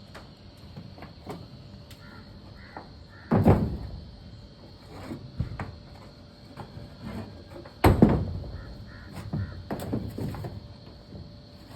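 Crows cawing, with two heavy thuds about four and a half seconds apart, the first about three seconds in and the second near eight seconds.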